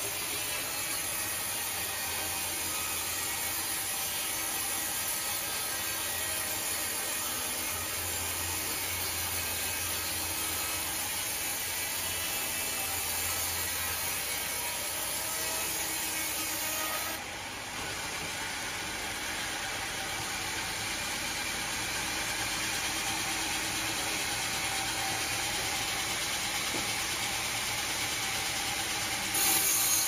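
Band sawmill blade cutting through a large teak log, a steady mechanical running noise with a low hum, dipping briefly a little over halfway.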